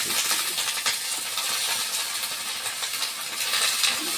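Raw chicken pieces and sliced onion sizzling steadily in an iron karahi, with short clinks and scrapes of a spoon as they are stirred.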